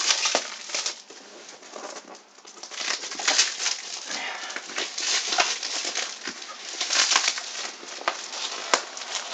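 A taped cardboard parcel being unwrapped by hand: plastic wrapping and packing tape crinkling, rustling and ripping in irregular bursts.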